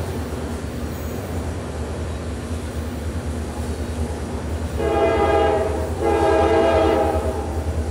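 Diesel locomotive air horn sounding two long blasts from a CSX freight train out of sight, the second following almost at once, each a chord of several steady notes. A steady low rumble runs underneath.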